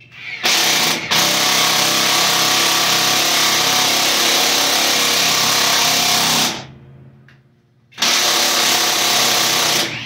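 Cordless drill running under load into a wooden wall stud, in two runs: one of about six seconds that eases off briefly about a second in, then a shorter one of about two seconds near the end.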